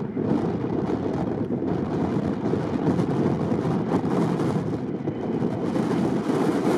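Steady rushing noise of an Airbus A319's jet engines during its landing, mixed with wind buffeting the microphone.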